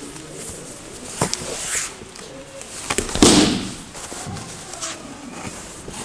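Bodies moving on tatami mats during a jiu-jitsu takedown. There is a short sharp impact about a second in, then a louder thud and rustle about three seconds in as a person is brought down onto the mat.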